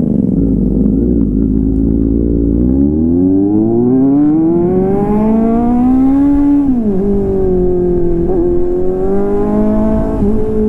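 Kawasaki Z800's inline-four engine pulling away and accelerating: the engine note climbs steadily for a few seconds, drops sharply at an upshift about seven seconds in, then holds nearly steady as the bike cruises.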